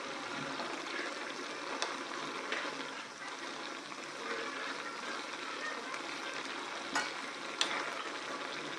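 Fish curry bubbling and sizzling at a hard boil in a nonstick pan, with a steel ladle stirring through it and a few sharp clicks.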